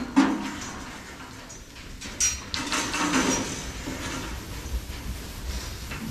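Metal goat-pen gates and panels clanking and rattling as goats are moved between pens, with a sharp ringing metal clang about two seconds in.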